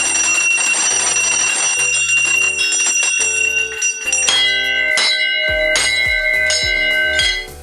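Metal temple bells ringing during a puja: first a continuous, rapidly shaken ringing, then from about four seconds in a lower-pitched bell struck repeatedly, about three times a second, stopping shortly before the end.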